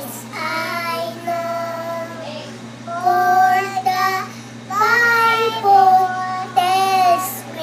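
Two young children, a boy and a girl, singing a children's hymn together in three phrases with held notes, over a steady low hum.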